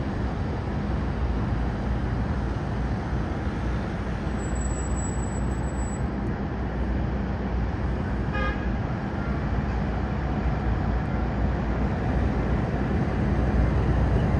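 Steady low rumble of aircraft engines across the airport, growing a little louder near the end, with a brief horn-like toot about eight seconds in.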